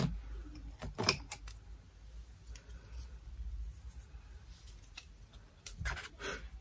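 Handling noise close to the microphone: a few sharp clicks in the first second and a half, then faint scattered ticks and light rustling as hands work at the hair, with a short cluster of rustles near the end.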